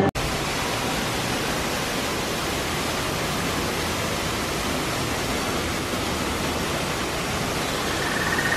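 Waterfall pouring off artificial rockwork: falling water making a steady, even hiss that cuts in abruptly just after the start.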